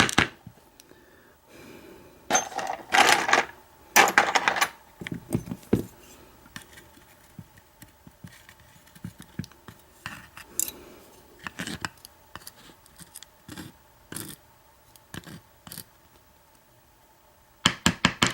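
Small metal parts of a disassembled American 1100 padlock, its pins and parts, clicking and clinking against a hard surface and each other as they are handled. The taps come irregularly, with louder clattering stretches a couple of seconds in and a quick run of clicks near the end.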